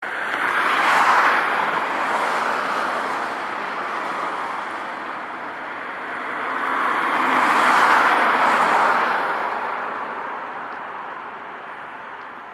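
Two vehicles pass close by, one about a second in and another around eight seconds in. Each passing is a rush of noise that swells and then fades away.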